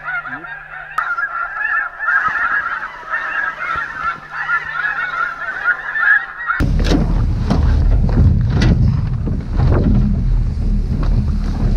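A dense, continuous chorus of many snow geese honking and calling over one another. About two-thirds of the way through it cuts off abruptly, giving way to wind buffeting the microphone with a low rumble.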